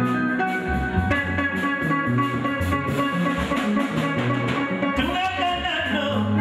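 Live band playing an instrumental passage: electric guitar and bass guitar over a drum kit.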